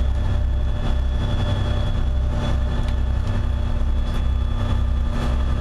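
Fishing charter boat's engine running with a steady low rumble and a faint even hum, heard from inside the boat's cabin.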